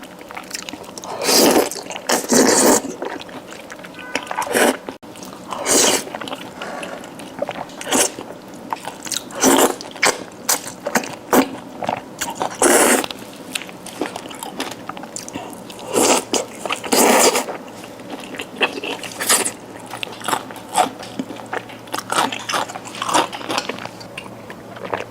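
Close-miked eating: a person biting and chewing food, with crunchy bites and wet chewing at irregular intervals.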